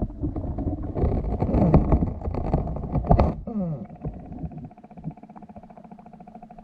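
Muffled water and handling noise picked up by an underwater camera: knocks and gurgling with falling glides, giving way about three and a half seconds in to a quieter steady, fast-pulsing hum.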